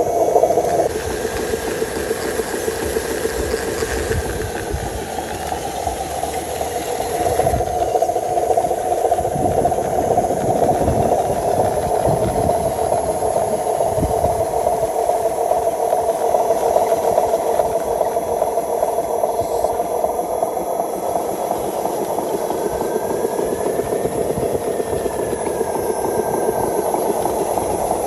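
Radio-controlled model truck's electric motor and gearbox whirring steadily with a rattle as it crawls through tall grass.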